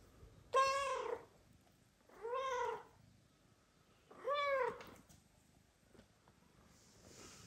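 Mother cat meowing loudly three times, about two seconds apart, each meow rising and then falling in pitch, as she asks to be petted.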